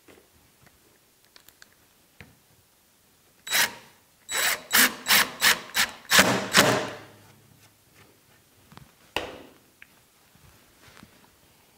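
Cordless drill run into plywood in about half a dozen short trigger bursts, then one longer run that trails off. This is a stage of countersinking, pilot-drilling and screwing a fence on from the underside. Small knocks come from drills being picked up and set down on a wooden bench, with one sharp knock a few seconds after the drilling.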